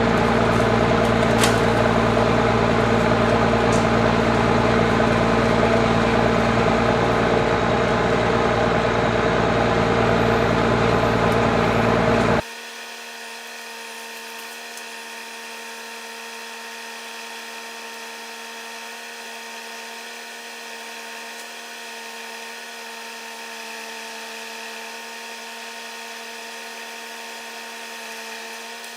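An engine running steadily at high speed. About twelve seconds in it cuts off abruptly to a much quieter, steady engine drone with a clear hum.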